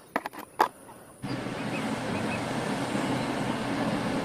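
A few light plastic clicks from a toy dump truck being handled, then, about a second in, a steady engine drone from heavy earth-moving machinery: a large mining excavator loading a haul truck.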